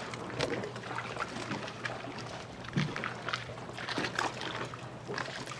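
Small waves lapping and splashing irregularly against a boat's hull and wooden dock pilings, over a low steady hum.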